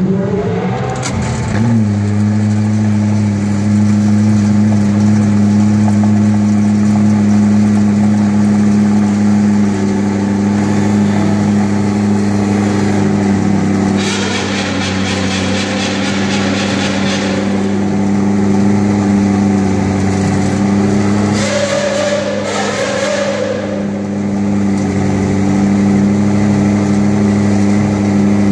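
McLaren P1's twin-turbo V8 running: its revs climb in the first two seconds, then it holds a steady idle for the rest.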